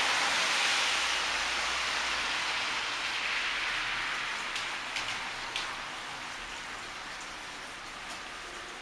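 Steady rain hiss, with a few single drops striking close by in the middle and near the end. The hiss is loudest at first, while a car drives past on the wet street, and slowly eases off.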